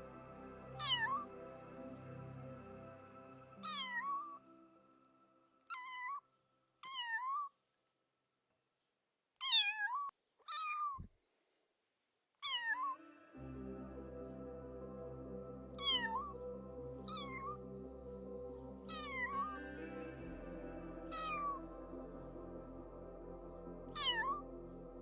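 A domestic cat meowing repeatedly, about a dozen short meows that each bend down and back up in pitch, over soft background music that stops for a few seconds in the middle.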